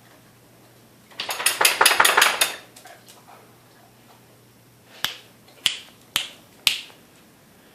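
A quick clattering run of about ten sharp clicks lasting over a second, then four single sharp clicks about half a second apart near the end.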